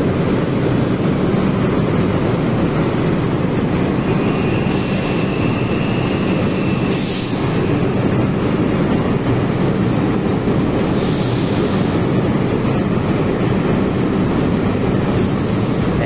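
Light rail train running into the station platform and slowing, its wheels and motors making a steady heavy rumble. A thin, high squeal from the wheels or brakes starts about four seconds in and lasts about three seconds.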